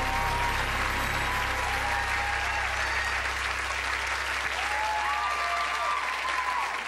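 Studio audience applauding, with a low steady hum underneath.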